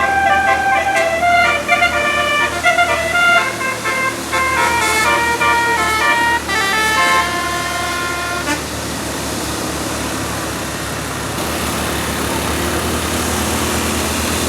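Bus telolet basuri musical air horn playing a quick melody of changing notes for about the first eight seconds, then stopping, leaving a steady rushing noise.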